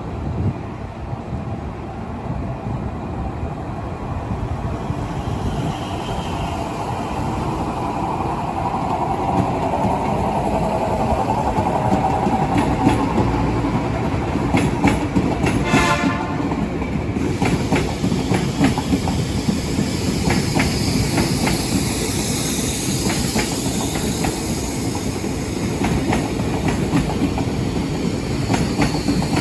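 A train rolling through a station, its wheels clicking over the rail joints. The noise builds over the first ten seconds, with a short sharp sound about sixteen seconds in, after which the clicks come thick and fast over a high hiss.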